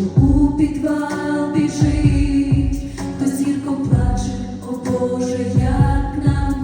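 Background music: a sung song, a voice holding long notes over a backing track with repeated low drum beats.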